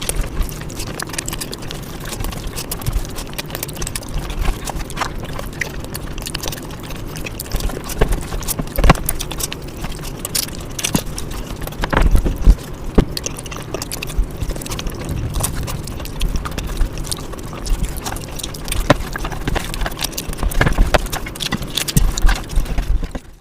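Close-miked chewing and mouth sounds of a person eating egg curry with rice: irregular wet clicks, smacks and squelches over a low rumble, a few louder about halfway through.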